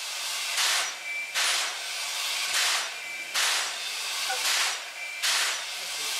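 Class C11 steam locomotive standing at rest, hissing in regular puffs of steam about once a second, the steady beat of its steam-driven air pump, with a faint thin high tone between the puffs.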